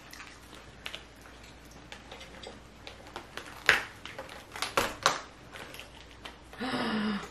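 Cooked king crab legs being snapped and pulled apart by hand: scattered sharp cracks and clicks of shell, with a few louder snaps a little past the middle.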